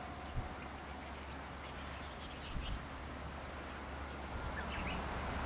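Outdoor roadside ambience: small birds chirping a few short times over a steady low rumble, with two brief soft thumps. The background noise grows louder near the end.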